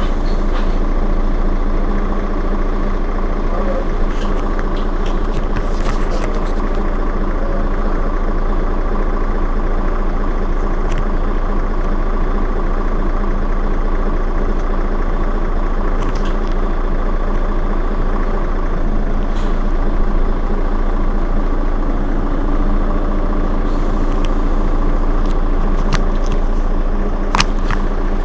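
Mercedes-Benz Citaro Facelift city bus's rear-mounted engine idling steadily while the bus stands at a stop, with a few faint clicks now and then.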